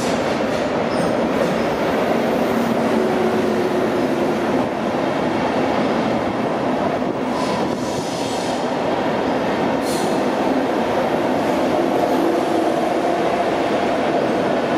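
Flixtrain passenger train of coaches rolling into an underground station and braking to a stop at its terminus, a steady loud rumble of wheels on rail echoing off the concrete, with thin squealing tones from the wheels.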